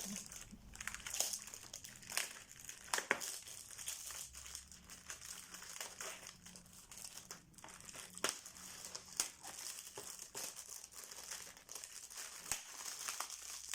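Packaging crinkling and rustling as flat-pack parts are pulled out, with scattered light clicks and knocks.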